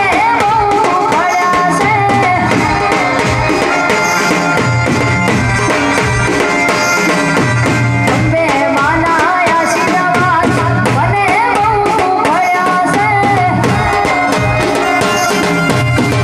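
Loud Navratri garba folk music over a sound system: a driving drum beat with a wavering lead melody line.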